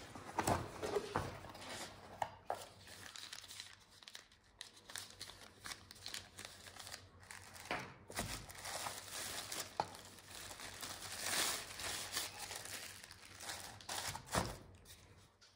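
Cardboard box and its thin white wrapping being handled: irregular crinkling and rustling with small knocks as the flaps are opened and the syringe and its clear plastic tubing are pulled out.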